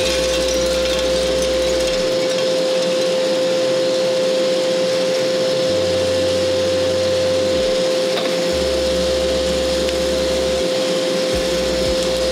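Small drum coffee roaster running during a roast: a steady blower-and-drum noise with a constant mid-pitched whine.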